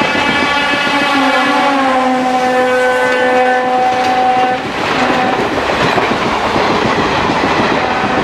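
A locomotive horn sounding as an express train passes close by at speed, its pitch dropping as it goes past. The horn stops about halfway through, and the loud rushing and rolling noise of the coaches going by carries on.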